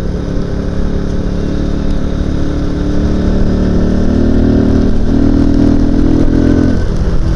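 Motorcycle engine running under way, with heavy wind and road rumble on the action-cam microphone. The engine note climbs in steps a few seconds in, then drops off shortly before the end as the throttle is eased.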